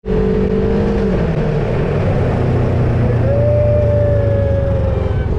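Engine of a Polaris RZR 1000 cc side-by-side buggy running under way over sand, its note rising sharply about three seconds in and then easing off.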